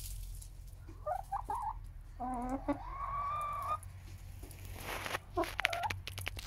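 Hens settled in a straw nest box to lay, clucking softly, with one long, wavering call about two seconds in. Around five seconds there is a brief rustle with a few sharp clicks, followed by another short call.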